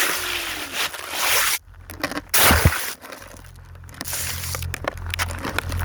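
Close scraping and rustling of snow against the phone's microphone, in two loud bursts in the first half, followed by softer scattered clicks and crackles of handling.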